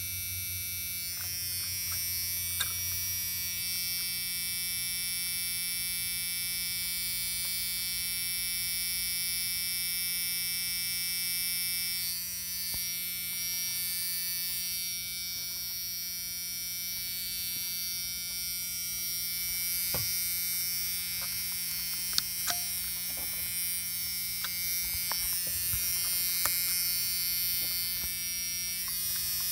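A steady electrical-sounding buzz and hum made of several fixed tones, with a few faint clicks scattered through it.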